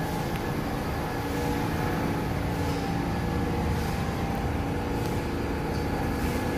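New York City subway train noise in the station: a steady rumble with a constant hum.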